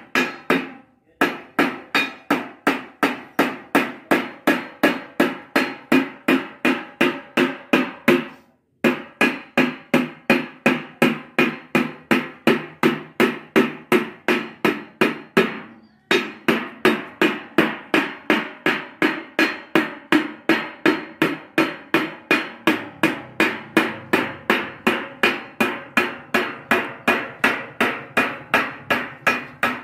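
Hand hammer striking a curved, polished sheet-metal mosque dome segment being shaped by hand, each blow ringing. The blows come steadily at about two and a half a second, with short pauses about a second in, near the middle, and just past halfway.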